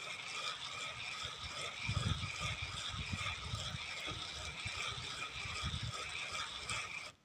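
Wind buffeting the microphone in uneven low gusts over a steady high-pitched outdoor drone.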